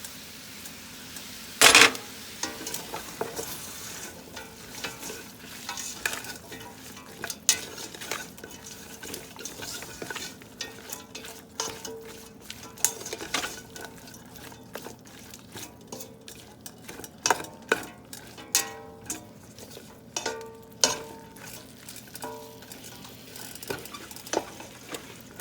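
Chopped cabbage frying in a pan: a steady sizzle under irregular clicks, knocks and scrapes of a utensil stirring against the pan, some of them ringing briefly. A loud knock comes about two seconds in.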